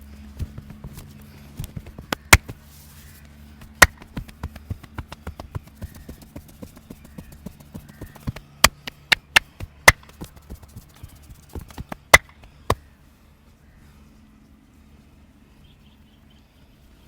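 Sharp slaps and claps of a massage, hands striking the head and body in an irregular run of strikes with a quick cluster of loud ones in the middle; they stop about three-quarters of the way through. A low steady hum runs underneath.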